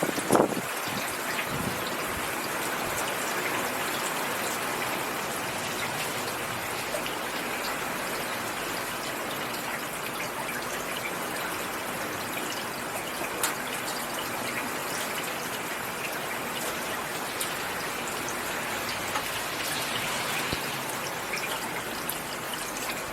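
Steady rain falling on leaves, a constant hiss with many small distinct drop ticks. A brief low thud sounds just after the start.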